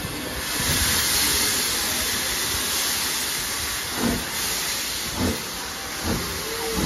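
Steam locomotive hissing loudly as steam blows from it at the platform, then starting to move off with its first slow exhaust chuffs, about four in the last three seconds and coming slightly closer together.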